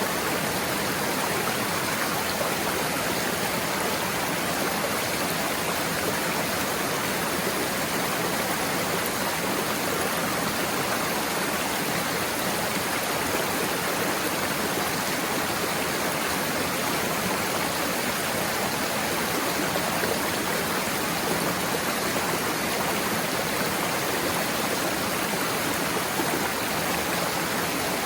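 Small waterfall and stream: water falling and rushing in a steady, unbroken splashing.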